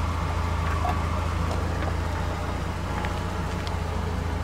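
UAZ Patriot SUV's engine running steadily at low revs as the vehicle pulls slowly forward to the foot of a dirt slope.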